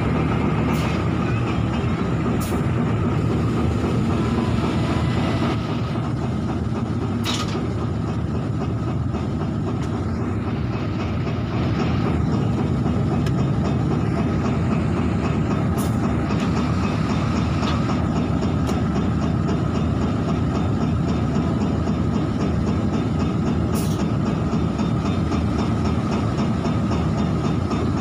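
Diesel locomotive's engine running steadily, heard close up from the locomotive's side walkway, with a few faint clicks.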